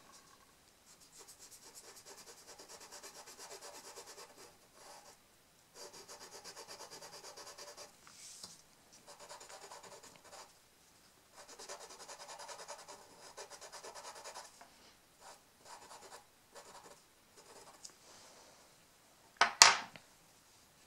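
Pastel crayon rubbing and scratching on paper in stretches of a few seconds with short pauses, as a stamped motif is coloured in. A short loud knock near the end.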